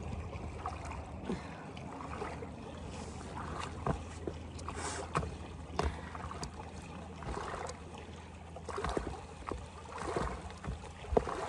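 Small waves lapping at a rocky lakeshore, a soft steady wash with scattered sharp clicks and knocks throughout.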